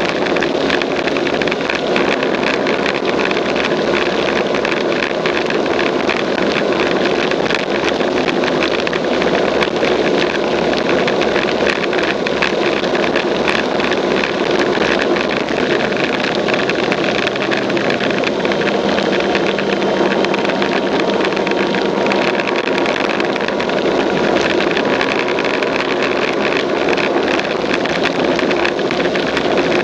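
Two-wheeler engine running steadily with wind rushing over the bike at road speed, recorded from a camera mounted on the bike. It is loud and even throughout, with no change in pace.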